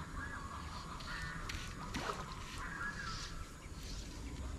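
Repeated short, harsh bird calls, several in a row, over a steady low rumble.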